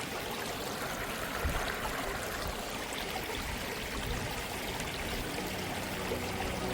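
Small waterfall in a forest, water splashing and flowing in a steady, even rush.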